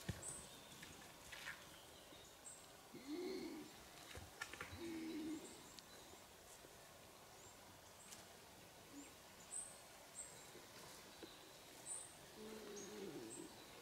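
Faint birdsong in a forest: short high chirps scattered throughout, with a few lower, longer calls. A few sharp cracks come as the brown bear cub gnaws a piece of rotten wood.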